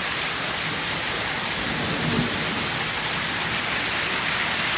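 Heavy rain pouring down, a steady, even hiss of rain hitting surfaces.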